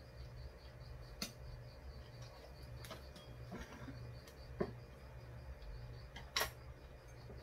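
A few sharp clicks of a spoon and chopsticks against ceramic bowls and dishes while eating, the two last clicks the loudest, over a steady low hum and a faint high pulsing about four times a second.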